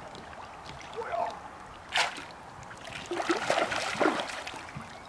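Carp feeding at the surface in the shallow margin: a sharp splash about two seconds in, then a burst of splashing and slurping from their mouths at the surface a second later.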